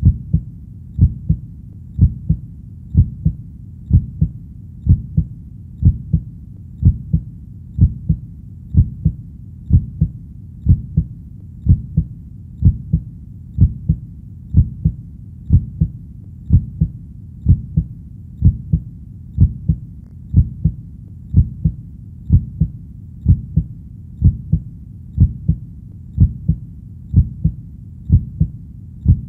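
Heartbeat: a steady, deep lub-dub, each beat a double thump, at about one beat a second.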